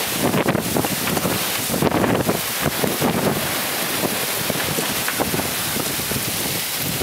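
Wind buffeting the microphone in uneven gusts over the steady rush of water along the hull of a sailing trimaran under way.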